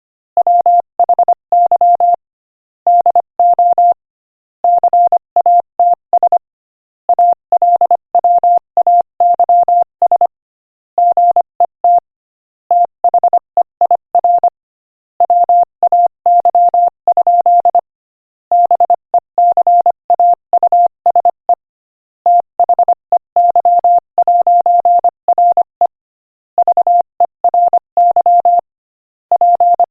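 Morse code sent at 25 words per minute: a single steady beep tone keyed on and off in quick dots and dashes, grouped into words with short pauses between them.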